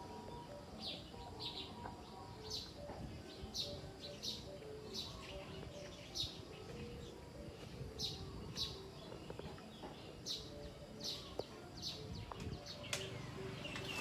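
A small bird chirping over and over: short, high calls repeating about once or twice a second, over a low background hum.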